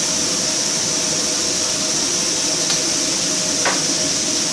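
Mushrooms and onions frying in oil in a pan, a steady sizzling hiss over a low steady hum. A light tap sounds about three and a half seconds in.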